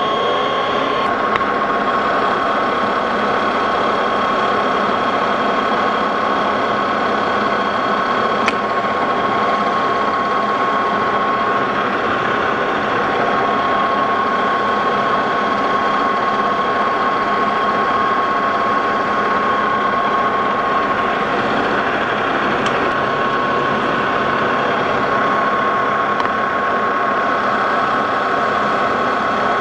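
Metal lathe running steadily under a boring cut, a boring bar opening up the bore of the spindle hub; a steady whine sits over the machine's even running noise.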